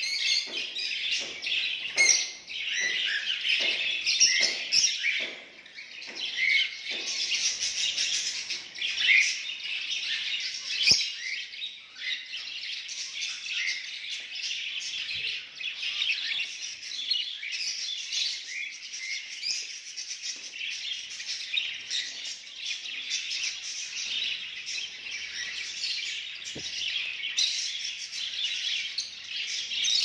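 A group of caged zebra finches calling: a dense, continuous chatter of short, high overlapping chirps, with a couple of light taps.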